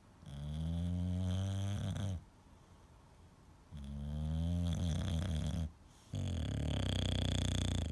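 English bulldog snoring: three long snores of about two seconds each, with short pauses between them.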